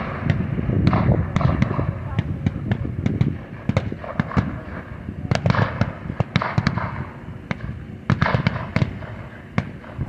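Blank small-arms fire from WWII battle reenactors: many sharp, irregular shots, at times several a second, over a low rumble.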